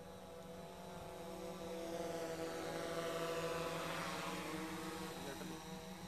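Multirotor drone's propellers buzzing with a steady pitch, swelling to its loudest about three seconds in, then easing off slightly.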